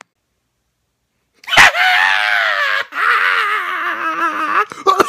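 A man screaming: after a sharp click about a second and a half in, two long, high, wavering yells, breaking into short bursts near the end as the scream turns to laughter.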